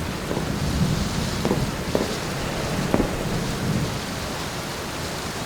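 Hard rain falling steadily, with a few sharp drop taps and a low rumble of thunder underneath.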